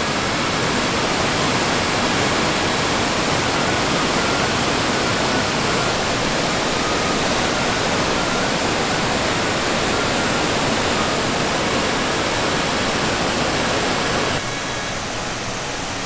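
Small waterfall spilling over a rock ledge into a river, giving a steady, even rush of falling and flowing water. The rush drops a little quieter about fourteen seconds in.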